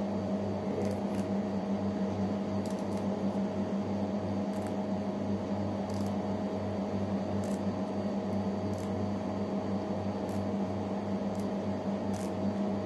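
Faint crisp snaps and rustles, roughly one a second, as moringa (malunggay) leaflets are stripped off their stems by hand, over a steady low electrical hum from an appliance.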